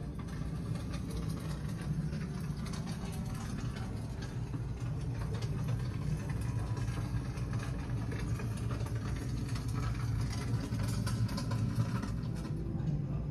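A steady low mechanical hum, like machinery running, with faint scattered clicks over it.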